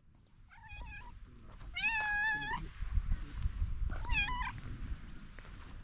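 A cat meowing three times, the middle meow the longest, over a low rumble.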